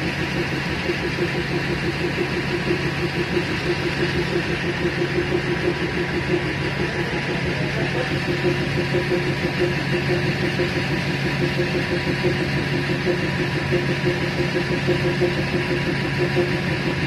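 Diesel engine of a DEMU passenger train running steadily, heard inside the driver's cab.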